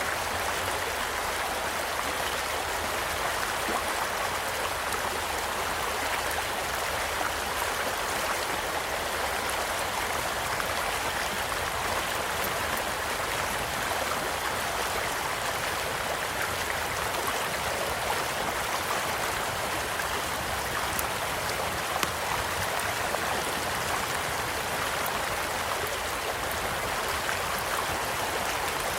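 Stream flowing steadily in a smooth rush, with the small sharp crackles and pops of a wood campfire scattered through it; one pop about two-thirds of the way in is louder than the rest.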